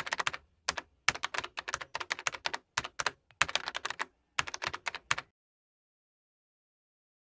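Computer keyboard typing: quick runs of key clicks in several bursts that stop about two-thirds of the way through.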